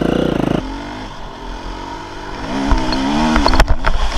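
Enduro motorcycle engine running hard, then a rev that rises and falls in pitch. Sharp knocks and clattering follow near the end.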